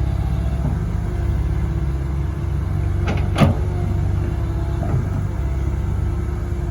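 Komatsu PC130 excavator's diesel engine running steadily, with a single sharp clank about three and a half seconds in.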